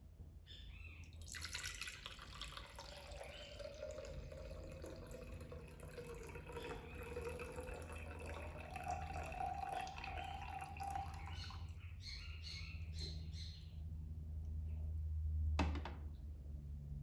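Water poured from one glass pitcher into another: a steady trickling pour for about ten seconds, then a few last drips. A sharp knock comes near the end as a glass pitcher is set down on a plastic tray.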